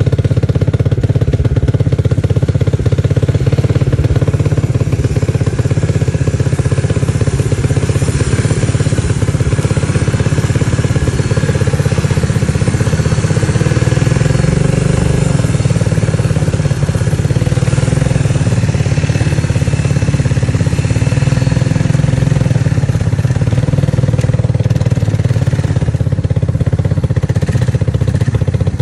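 ATV (quad bike) engine running steadily and loudly at low revs, with little change in pitch.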